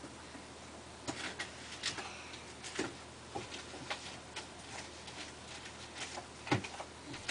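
Irregular light clicks and taps, a few a second, unevenly spaced, with one louder tap about six and a half seconds in.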